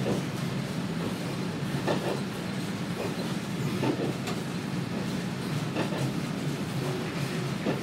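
Kominato Railway KiHa 200 diesel railcar running along the line, heard from inside the car: a steady low engine and running drone, with the wheels clicking over rail joints every second or two.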